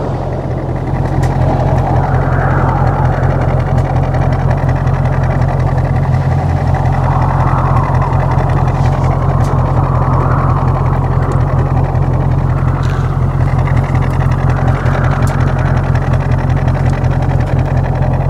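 Audi S6's 4.0-litre twin-turbo V8 idling steadily, a deep even drone.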